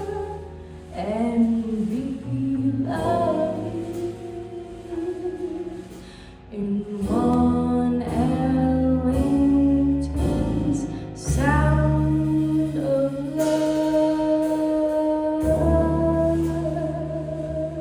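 Jazz quartet performing a ballad, with a singer holding long notes over the band's accompaniment and a steady bass line.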